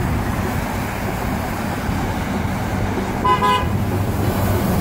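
Steady road traffic noise from passing cars, with one short car horn toot about three seconds in.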